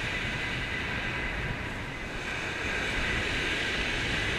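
Strong wind buffeting the microphone, with surf breaking on a shingle beach behind it: a steady rumble and hiss.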